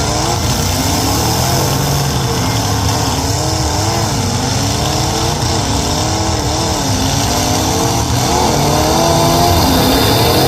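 Demolition derby car engines running and revving, several pitches rising and falling over one another, with a steady low rumble underneath.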